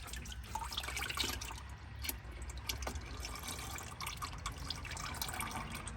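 Used engine oil draining from under a pickup truck into a drain pan: a steady trickle with irregular drips.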